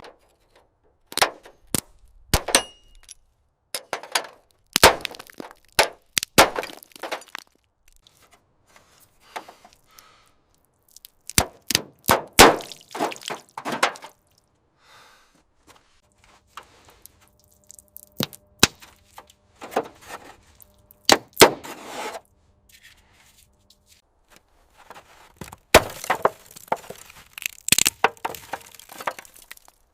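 Irregular clusters of sharp knocks, clanks and cracks from hand work on metal parts, with short quiet gaps between them. A faint steady hum sits under the middle stretch.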